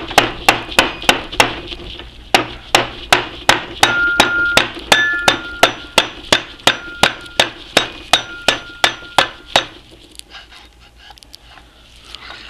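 Steady, rapid hammer blows on the Atlas 10F lathe's headstock spindle, about two to three a second, with a brief pause about two seconds in. A clear ringing tone sounds between the blows in the middle stretch, and the hammering stops near the end. The spindle is being driven out against a pulley seized on it, and it is not moving.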